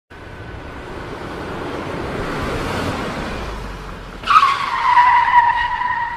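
Sound effect of a vehicle rushing up, its noise swelling and then fading, followed about four seconds in by a sudden loud screech of tyres skidding that holds to the end.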